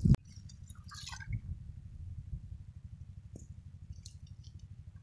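Faint dripping and splashing of shallow muddy water over a low steady rumble, after a sharp click at the very start.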